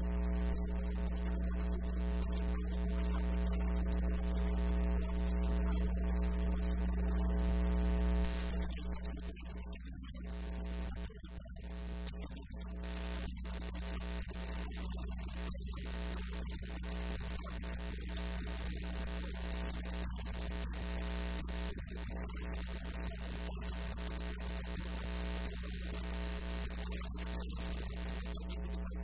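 Steady electrical mains hum on the recording: a low buzz made of a stack of steady tones. The lowest part of the hum drops away about eight seconds in.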